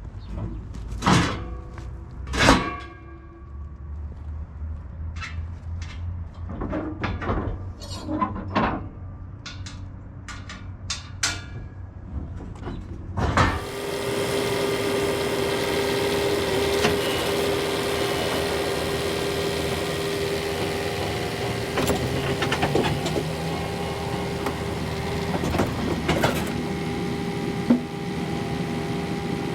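John Deere 317 skid steer: a low hum with a series of clicks and knocks, then about halfway through a sudden jump to loud, steady machine running with a steady whine, as the skid steer goes up to working throttle.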